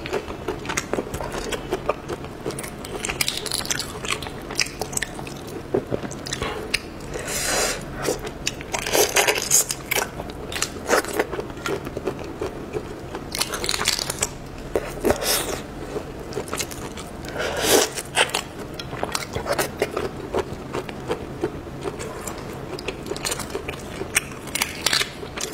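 Close-up sound of prawn shells crackling and crunching as prawns are pulled apart and peeled by hand, mixed with biting and chewing. Irregular crisp clicks come in uneven clusters every second or two.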